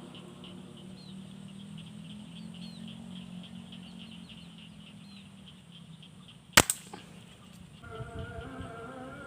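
Small birds chirping over a field background, then one sharp loud crack from an uklik air rifle being fired about two-thirds of the way in, with a smaller crack right after it.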